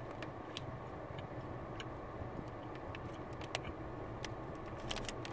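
Faint scattered mouth clicks from chewing a Hi-Chew chewy candy, over a steady low hum.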